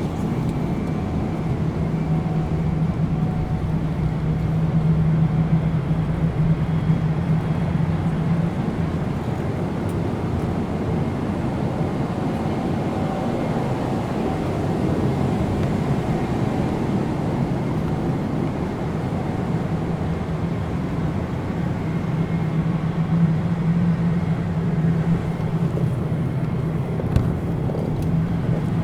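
Airplane cabin interior noise: a steady rumble with a low hum that weakens in the middle and comes back strongly near the end.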